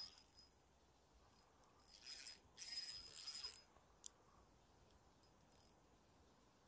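Small spinning reel being cranked to wind in line: a soft, high gear whir with a thin whine, in two short spells about two to three and a half seconds in, followed by a faint click.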